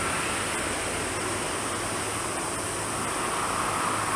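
McDonnell Douglas MD-11 freighter's jet engines running at taxi power: a steady hiss and rumble with no distinct tones.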